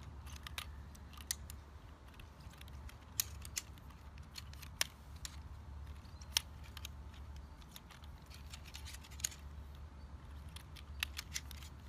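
Aluminium leg tubes of a Trekology YIZI GO folding camping chair being pulled apart and folded into the hub: irregular light metal clicks and clacks, over a low steady hum.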